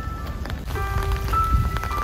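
Slow background music of single, held, bell-like notes, with several notes overlapping from about a second in, over a steady patter of rain.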